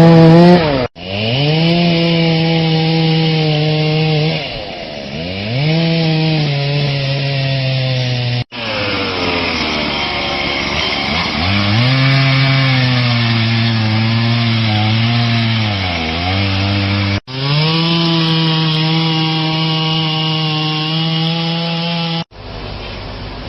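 Two-stroke chainsaw running at high revs and cutting through fallen tree trunks, its engine note sagging in pitch as the chain bogs into the wood and rising again as it frees up. The sound breaks off abruptly three times and resumes, and drops to a quieter, duller noise near the end.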